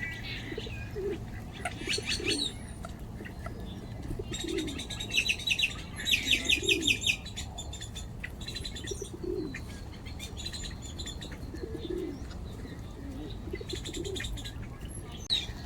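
Pigeons cooing over and over, with bursts of rapid, high chirping trills from other birds, the loudest about five to seven seconds in.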